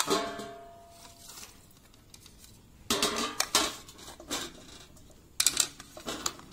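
Clatter of a plastic bowl and metal strainer being handled over a plant pot: a sharp knock with a short ringing tone at the start, then two bursts of clinking and scraping about three and five and a half seconds in.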